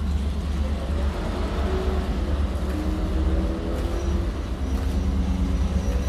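Can-Am race car's fuel-injected V8 engine with open velocity stacks, running steadily at idle with a deep, low-pitched exhaust note.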